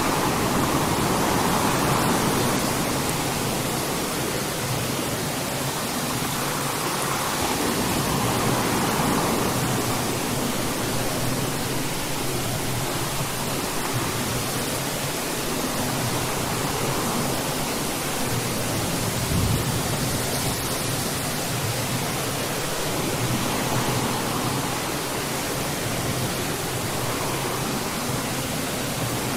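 Steady rain falling, an even hiss that swells gently now and then.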